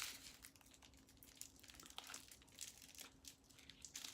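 Faint small clicks and plastic crinkling as diamond painting resin drills are pushed apart and counted by hand, with a low steady hum underneath.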